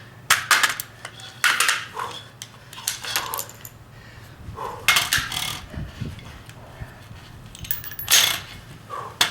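Sharp metallic clicks and clacks in quick clusters from an AR-15 carbine being worked by hand while clearing malfunctions, the loudest cluster about eight seconds in.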